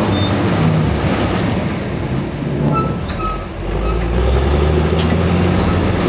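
Manitowoc 4600 dragline bucket being dragged through broken rock on its drag chains, scraping and clattering, with the machine's engine running under load. About halfway through the sound dips briefly, then the low engine note comes back stronger.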